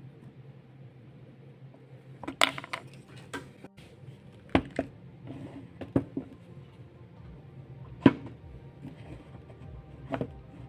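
Scattered knocks and clicks of wooden pieces and tools being handled and set down on a workbench: a quick cluster about two seconds in, then single knocks every second or two, the sharpest about eight seconds in.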